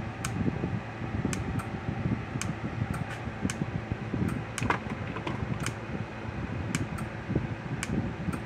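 Zareba Red Snap'r LI30C electric fence charger, repaired with a replacement transformer, running and pulsing into a fence tester: sharp faint ticks about one to two a second over a steady fan-like hum.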